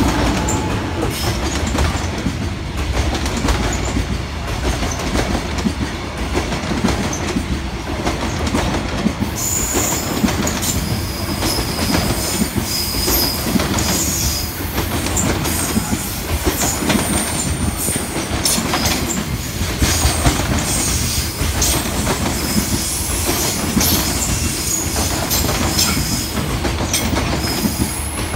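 Freight train of container flat wagons rolling past at speed: a steady rumble with repeated wheel clacks over the rail joints. From about ten seconds in, high-pitched wheel squeal comes and goes.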